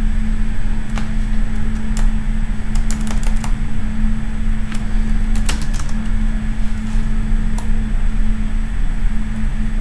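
Scattered keystrokes on a computer keyboard, single clicks with short quick runs about three seconds in and again about five and a half seconds in, over a steady low electrical hum.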